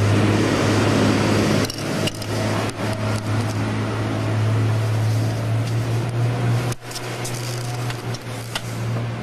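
A steady low machine hum with a broad rushing noise, heard from inside Concorde's flight deck while the aircraft is under tow. A few light knocks sound over it, and the sound briefly cuts out about seven seconds in.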